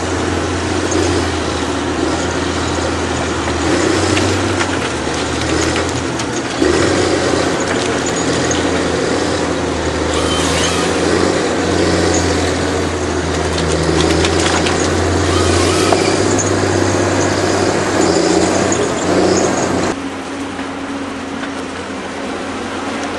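Diesel engine of a Cat 320 CL excavator-based harvester running steadily under load, with hydraulic noise and a few knocks and cracks as its Log Max 10000 head handles trees. The sound becomes quieter and more distant near the end.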